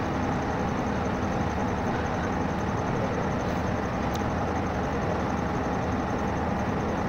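Steady drone of an idling diesel locomotive engine, even and unchanging.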